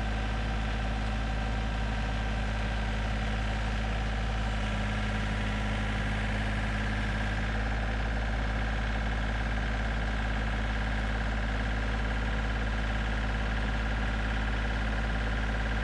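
John Deere tractor engine idling steadily, an even low hum with no change in speed.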